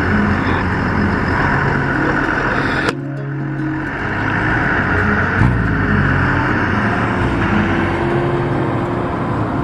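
Motor engines running under a steady rushing noise, with an abrupt cut about three seconds in.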